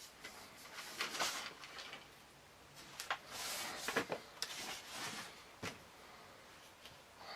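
Handling noises from the strop materials being moved about: a few light knocks and clicks with short scuffing and rustling between them.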